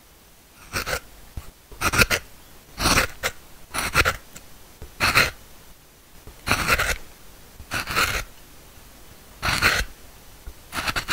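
About nine short scraping strokes, roughly one a second, of a wood chisel blade dragged across the bare surface of a green oak log, working crosswise to raise a striped pattern.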